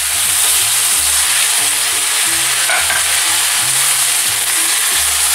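Beef strips and vegetables frying in oil in a hot wok, a steady high sizzle as soy sauce is poured in over them.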